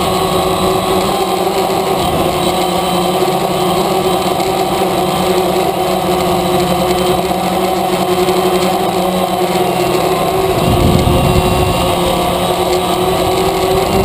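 DJI Phantom quadcopter's motors and propellers running steadily, heard close from its onboard camera as several steady whining tones that waver slightly in pitch. A low rumble joins about ten seconds in.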